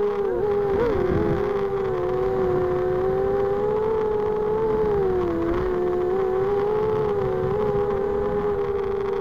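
Brushless motors and 5-inch propellers of a 250-size FPV quadcopter whining steadily as heard from the craft's own camera, with a noisy rush of air underneath. The pitch wobbles with throttle changes about half a second to a second in, and dips briefly around five seconds in.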